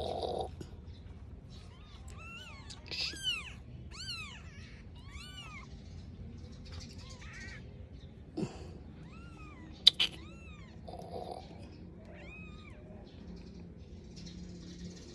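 Five-day-old kitten mewing: a run of thin, high calls, each rising then falling in pitch, coming every half second to a second. Two sharp knocks cut in, the louder one about ten seconds in.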